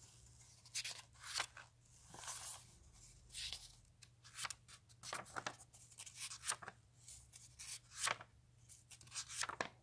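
Comic book pages being turned and handled: a string of short, soft paper rustles and flicks at an irregular pace, over a faint steady hum.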